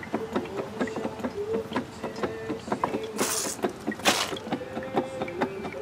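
Hand-operated Porta-Power hydraulic pump being worked to force fluid into the seized cylinder of an antique Witte hit-and-miss engine and push its piston out: a run of irregular clicks and a wavering squeak, with two short hisses about three and four seconds in.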